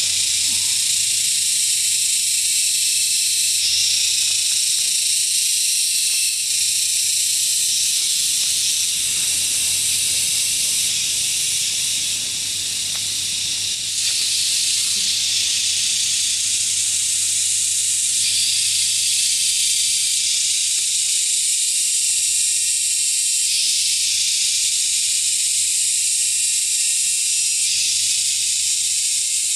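Steady, loud high-pitched hiss that runs without a break, with a faint low hum beneath it.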